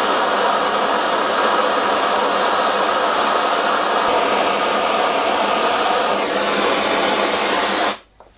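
Gas brazing torch flame hissing steadily while heating a brass assembly for brazing; it cuts off abruptly near the end.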